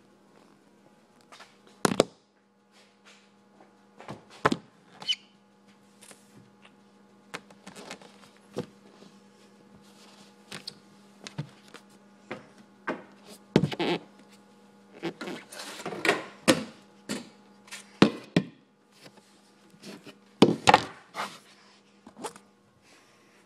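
Phone handling noise: irregular knocks, thumps and rubbing against the microphone, busiest in the second half, over a steady low hum.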